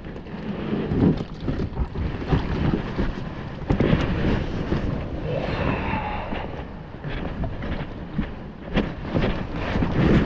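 Strong wind buffeting the microphone in irregular gusts, with water splashing and lapping around an inflatable kayak.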